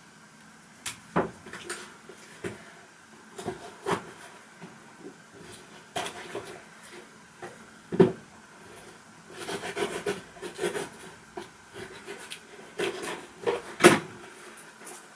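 A cardboard box being handled and slit open with a small pocket knife: irregular taps, knocks and rubbing scrapes of cardboard on a cutting mat, with a louder knock about eight seconds in and another near the end.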